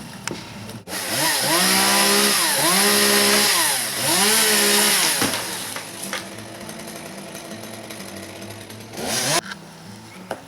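Gas chainsaw cutting into the top of a palm tree: it revs high in two long runs, the pitch falling at the end of each. It then drops back to a lower, steadier running sound, with one short rev near the end.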